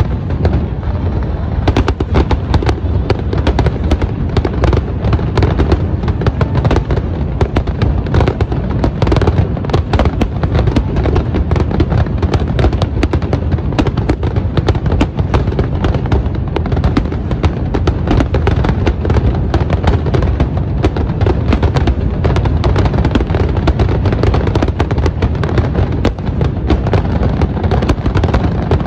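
Rapid-fire barrage of aerial firework shells bursting over and over: booming reports and dense crackle overlapping with no break.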